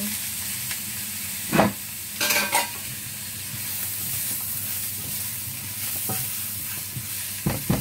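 Papaya sizzling in hot oil in a nonstick wok as a spatula stirs it, with several sharp knocks against the pan: a loud one about one and a half seconds in, a quick cluster just after two seconds, and more near the end.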